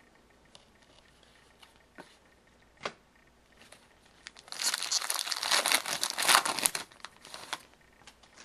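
Foil wrapper of a hockey card pack being torn open and crinkled: a crinkling, tearing burst of about two and a half seconds, starting about halfway through, after a few faint clicks of cards being handled.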